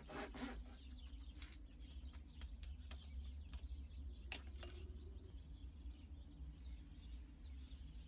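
Faint bird chirps, with a few light clicks in the first half, over a low steady hum.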